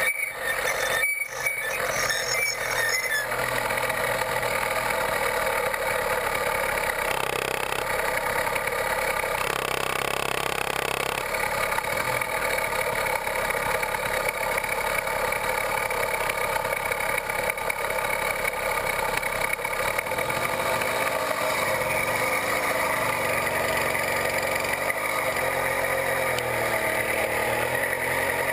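66/80cc Chinese two-stroke bicycle motor kit running steadily while under way, with a brief drop about a second in.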